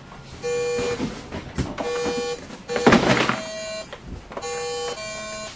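Simon electronic memory game playing its beeps: a series of separate half-second electronic tones at two pitches, a lower one and a higher one. A knock about three seconds in is the loudest sound.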